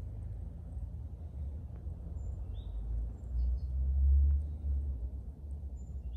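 Low outdoor rumble that swells and peaks a little past the middle, with a faint bird chirp just before the swell.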